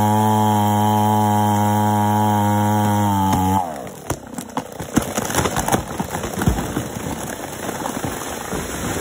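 A chainsaw runs steadily at high revs, then drops off about three and a half seconds in. A long run of loud cracking and snapping of wood and branches follows as a felled tree comes down.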